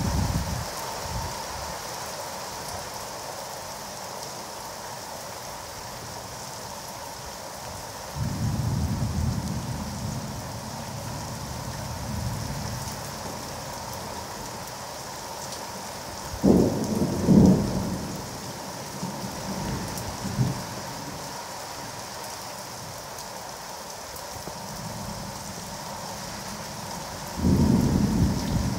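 Heavy rain falling steadily, with low rumbles of thunder: one swelling about eight seconds in, a sharper, louder peal around the middle, and another starting near the end.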